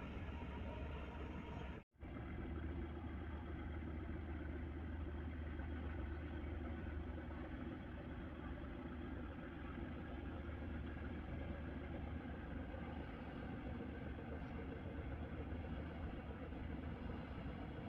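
Steady low drone of a passenger ship's engines running, with a constant low hum; the sound cuts out for a split second about two seconds in, then carries on unchanged.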